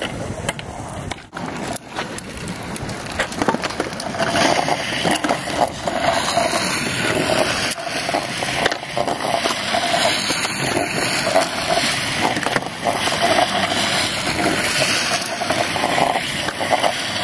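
Hard plastic rear wheels of a drift trike grinding and rattling across rough asphalt, a continuous gritty scraping with many small clicks and knocks.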